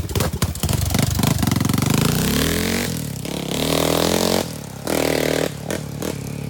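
Honda 400EX quad's single-cylinder four-stroke engine, freshly rebuilt, revving up and easing off in several pulls of the throttle; loud, with the pitch rising over the first few seconds, then two shorter blips of the throttle.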